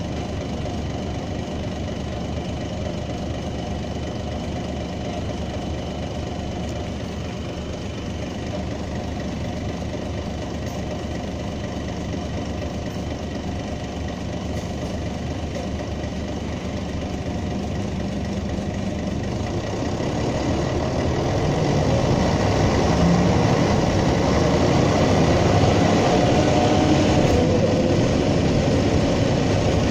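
Mercedes-Benz O305 city bus's OM407 six-cylinder diesel engine heard from on board, idling steadily. About twenty seconds in it grows louder as the bus pulls away under power.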